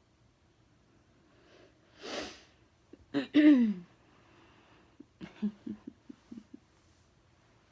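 A person sneezes: a noisy in-breath about two seconds in, then about a second later a loud, sharp sneeze whose voice falls in pitch. A few short, quieter voice sounds follow.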